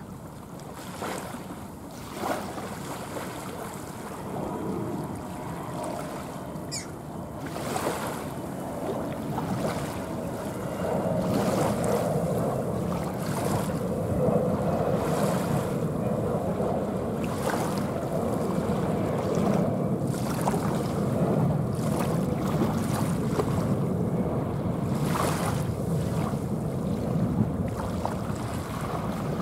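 Engine noise of an Airbus A320-216's CFM56 turbofans climbing out overhead after takeoff. It grows louder over the first ten seconds or so, then holds as a steady, deep rushing rumble, with gusts of wind hitting the microphone.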